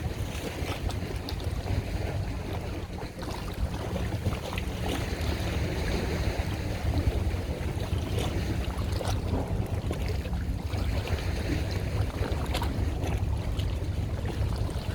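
Steady low rumble of wind buffeting the microphone, mixed with the wash of water and the running noise of a boat on open water.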